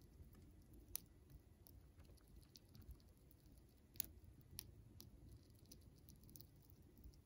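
Siberian chipmunk gnawing a pistachio: faint, quick crunching clicks from its teeth, with two sharper clicks about a second in and about four seconds in.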